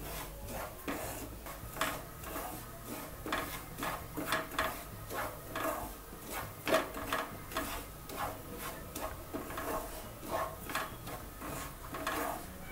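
Wooden spatula scraping and stirring semolina around a nonstick frying pan in repeated strokes, about two a second, as the semolina roasts in ghee.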